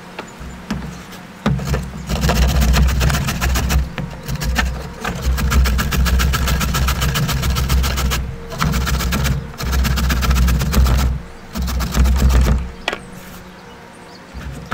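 Carrot being grated on a stainless steel box grater standing on a cutting board. Runs of rapid rasping strokes, with short breaks between them, stop about a second and a half before the end.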